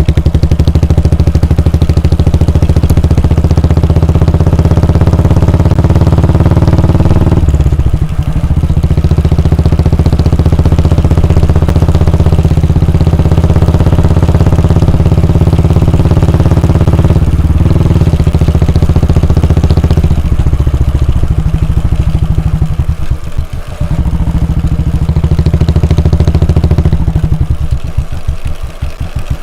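Royal Enfield Bullet 350's air-cooled single-cylinder engine and exhaust running under way on a ride, a steady thump. The note breaks briefly about 8 and 17 seconds in. Twice in the second half, around 23 seconds and near the end, it falls quieter to slow, separate beats as the throttle eases off.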